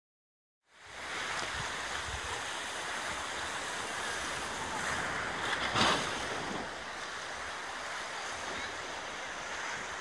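Sea waves washing ashore, a steady rush of surf with one louder surge about six seconds in.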